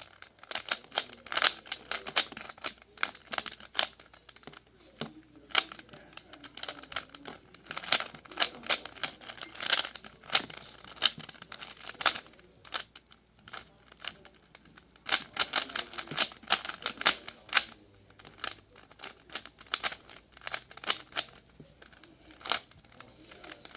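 Rubik's Cube being turned by hand: rapid, irregular plastic clicking and clacking of the layers snapping into place, in quick runs with short pauses between them.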